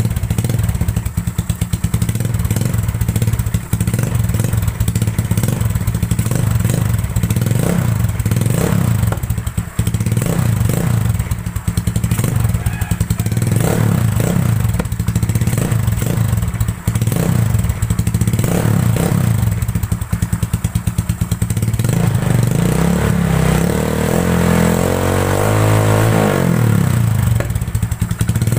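Yamaha Mio Sporty scooter's single-cylinder four-stroke engine idling through an open, unbaffled exhaust pipe, a loud rapid exhaust beat, with the idle set a little high to keep it from stalling. Near the end the throttle is blipped and the engine revs up and falls back to idle.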